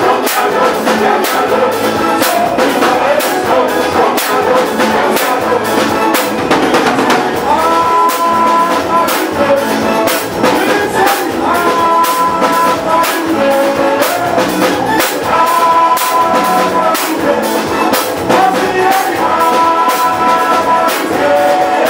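Live soca band playing with a brass section over a driving drum beat; the horns hold sustained chords several times, a few seconds apart.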